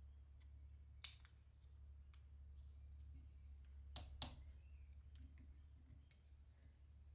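Near silence: a faint steady low hum, with a sharp click about a second in and two more close together around four seconds in as thin pieces are handled on a wooden board under a drill press.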